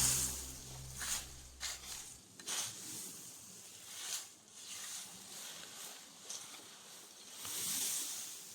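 Background music ends abruptly about two seconds in, followed by faint scattered rustling and light knocks, with a brief hiss swelling near the end.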